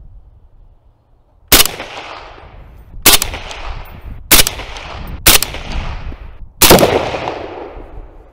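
Five single shots from an AK-pattern rifle, fired about a second to a second and a half apart. Each shot has a long echo tail that fades before the next.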